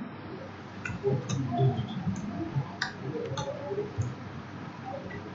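Computer keyboard keystrokes: irregular sharp clicks, about one every half second, as a line of code is typed.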